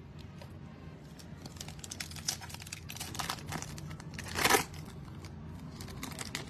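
Foil wrapper of a 2022 Panini Illusions trading-card pack crinkling as it is handled. The crackles start about a second and a half in and come thick and fast, with the loudest burst about four and a half seconds in.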